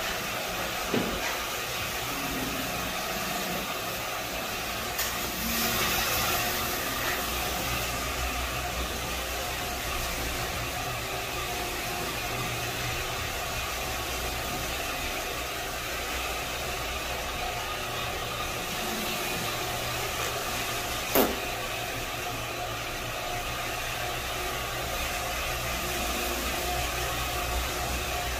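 Single-disc rotary floor machine running steadily, its motor hum and spinning pad working over an oak strip hardwood floor, a little louder for a couple of seconds early on. A single sharp knock sounds about three-quarters of the way through.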